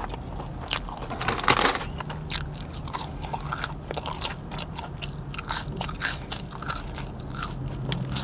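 Close-miked chewing of a burger and fries: wet mouth clicks and soft crunches, with a louder crunch about one and a half seconds in.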